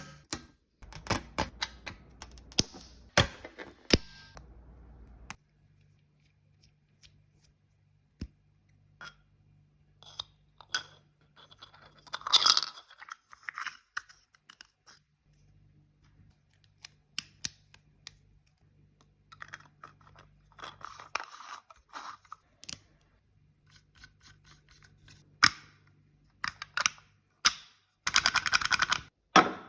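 3D-printed plastic stick-shift fidget toy being shifted through its gates: irregular sharp plastic clicks and clacks with short sliding scrapes, ending in a fast run of clacking near the end.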